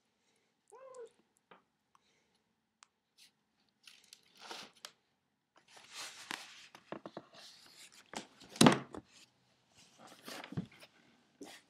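A cat gives one short meow about a second in, followed by scratchy scuffling of cats moving against a cardboard box and a wooden floor, with a single louder thump about two-thirds of the way through.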